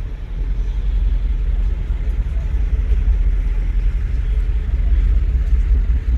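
Low, steady rumble of a ferry's engines heard from the open deck, with wind buffeting the microphone.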